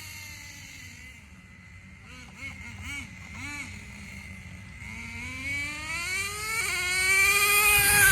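Traxxas 4-Tec's .15 nitro engine revving: its high-pitched note falls away, gives three short throttle blips, then climbs steadily and grows loud near the end. The engine sounds rough, which the driver puts down to needing tuning.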